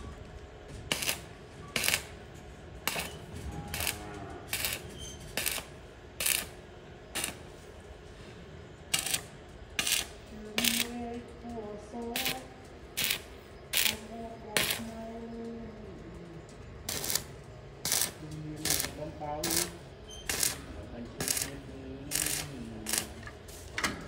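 Short, sharp metallic clicks repeating about once a second, from work on a galvanized steel tube frame.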